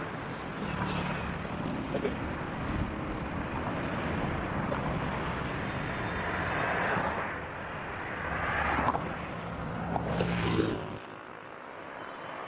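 Street traffic: a vehicle engine running close by with a steady low hum, with the noise of passing cars swelling and fading several times. The engine sound drops away near the end.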